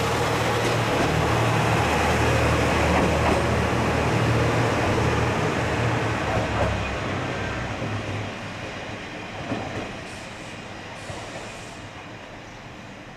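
A diesel railcar with a DMH17 engine pulls away with a deep engine drone and rail clatter, fading as it goes. The engine drone dies out about halfway through, leaving fainter fading wheel noise.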